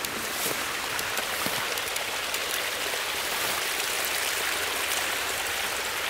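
Water running steadily over the top of an overtopped earthen clay levee, an even rushing sound.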